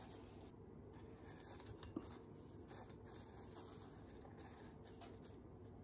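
Near silence, with faint scratching and ticks as a doughnut is pressed and turned in a glass bowl of cinnamon sugar, and one sharper click about two seconds in.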